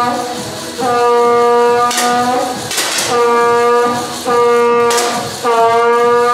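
A horn-like wind tone blown again and again on about the same pitch, each note held for about a second with short breaks between, and a few sharp cracks among the notes.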